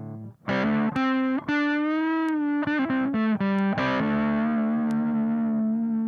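Reverend Sensei electric guitar played through the SAE Effects Beldam boost-and-fuzz pedal into a Frenzel Bassman amp, distorted. A few quick notes, a held note bent with vibrato about two seconds in, a quick run of short notes, then a long sustained note from about four seconds in.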